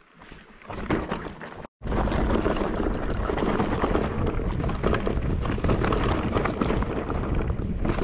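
Electric mountain bike ridden over rough, rocky ground: a steady clatter of tyres on stones and rattling of the bike, with wind on the microphone. It starts abruptly about two seconds in, after a short quieter stretch.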